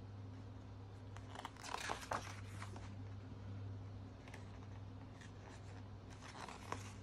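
Glossy magazine pages being handled and turned: a short burst of paper rustling and crinkling about a second and a half in, then a few faint paper ticks, over a steady low hum.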